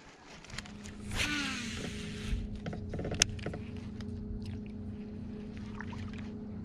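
Electric bow-mount trolling motor humming steadily. About a second in, a cast with a baitcasting reel, the line whizzing off the spinning spool in a falling whine; then a sharp click as the reel goes back into gear, and light ticking of the reel being cranked.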